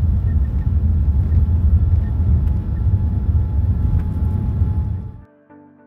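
Cabin noise of a Boeing 787-8 on its takeoff roll: a loud, steady, deep rumble of the Rolls-Royce Trent 1000 engines at takeoff thrust and the wheels on the runway. It cuts off abruptly about five seconds in, and soft music begins.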